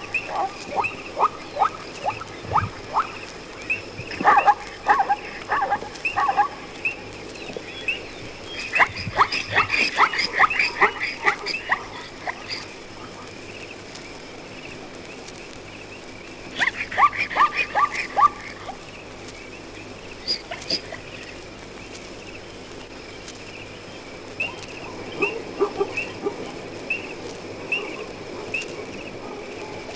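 Wild animals calling in bursts of rapid, repeated yelping barks, each run lasting a few seconds, several times over. A faint, regular high chirp repeats steadily underneath.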